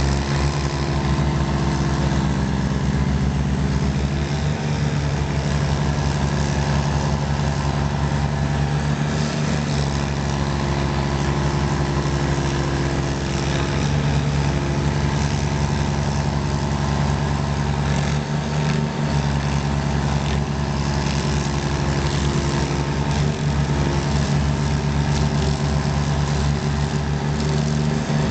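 Two stump grinders running under load, their engines steady as the cutting wheels grind into large cypress stumps. The low engine pulse dips briefly a few times.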